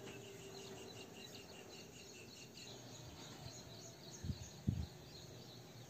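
Quiet background with faint, evenly repeated high chirps from a small calling animal, about four a second, dying away after about three seconds. Two soft low thumps follow about four and a half seconds in.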